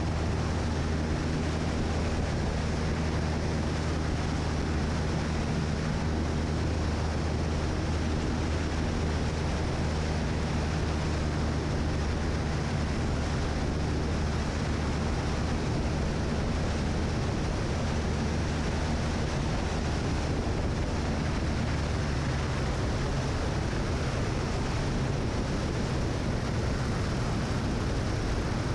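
Light single-engine airplane in flight: the steady drone of its piston engine and propeller under a rush of wind noise.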